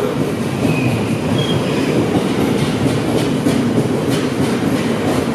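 Covered bogie hopper wagons of a freight train rolling past at speed: a steady loud rumble of wheels on rail, with a couple of brief high wheel squeaks in the first second and a half and a run of clicks as wheels pass over rail joints.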